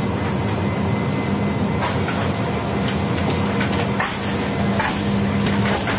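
Steady loud drone with a low hum, the machinery noise of a C-17 cargo hold, with light metallic clicks and clinks of tie-down chains and floor hardware being handled, a few of them about two seconds in and more between four and six seconds.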